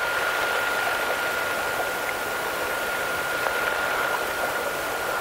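Steady hiss of an open two-way radio channel, with a thin high whine held on one pitch throughout.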